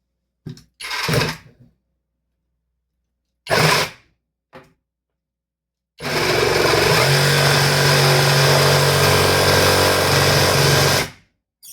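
Parkside 20V cordless reciprocating saw: a few short bursts, then about five seconds of steady running with a low hum before it stops. It runs smoothly, with no trouble.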